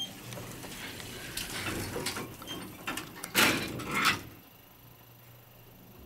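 Schindler freight elevator's sliding car doors closing, a rattling mechanical run that peaks in a louder clatter about three and a half seconds in, then settles to a faint low hum.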